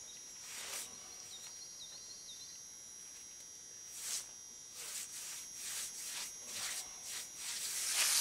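A wet sponge rubbed in short swishing strokes over a freshly patched concrete edge to blend the patch in. The strokes come more often and grow louder toward the end. Insects drone steadily in the background.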